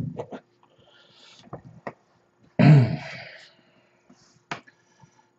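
Scattered light clicks and taps of small plastic model-kit parts being handled, with a soft rustle, and a loud breathy exhale like a sigh about two and a half seconds in.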